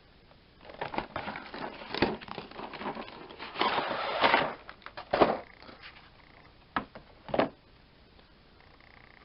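A cardboard game box and a clear plastic blister tray being handled and pulled apart: rustling, crackling and scraping for a few seconds, then a few sharp clacks of cardboard and plastic.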